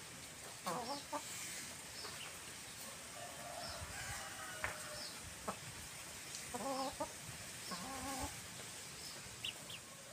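Domestic hens clucking in short runs of wavering notes, once about a second in and twice more in the last third. Thin high chirps repeat throughout.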